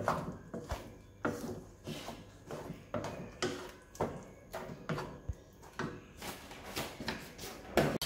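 Wooden spatula scraping and stirring a thick tomato, egg and salmon mixture in a wok, a stroke about twice a second.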